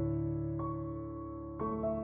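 Slow background piano music with long held notes; a new note comes in about a third of the way through and a fresh chord near the end.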